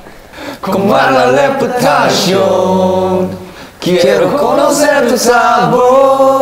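A male voice singing unaccompanied: two held, melodic phrases with a short break between them about halfway through.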